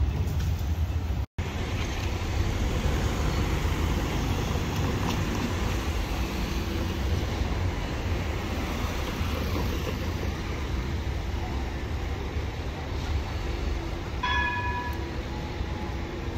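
Street traffic with Bombardier Flexity trams on the rails: a steady low rumble of vehicles and tram running, broken by an instant of silence just over a second in. A short horn-like tone sounds near the end.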